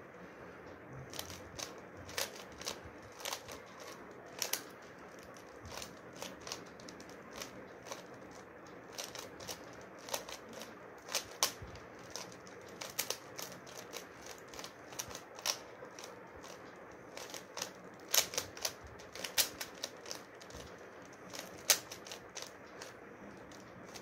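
Plastic 3x3 Rubik's cube being turned by hand: irregular clicking of the layers, a few clicks a second, over a faint steady hiss.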